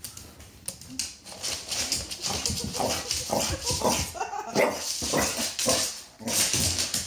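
Staffordshire bull terrier vocalizing in play, a string of short barks and whines starting about a second in, with a brief break near the end.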